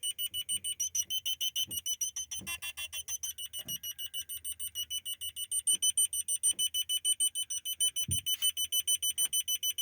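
Honda Civic eighth-generation factory reverse parking sensor beeper sounding a fast, even series of high beeps, about six a second. Its speaker has a piece of plastic fitted to cure a hissing in the beep, and the tone comes through clean.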